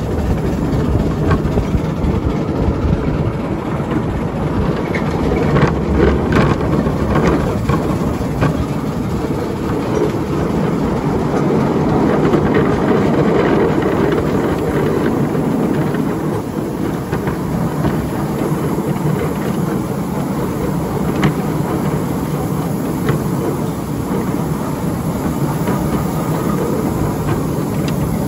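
Ride-on miniature railway train running along the track, a steady rumble of wheels and cars on the rails with occasional sharp clicks.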